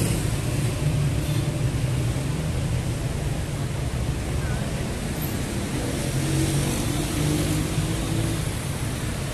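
City street traffic noise: a steady rumble of cars and motorbikes going by on the road beside the sidewalk.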